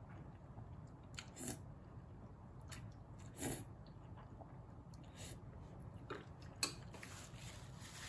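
A person eating glass noodles in chili soup: faint slurping and chewing, heard as scattered short sounds rather than one continuous slurp.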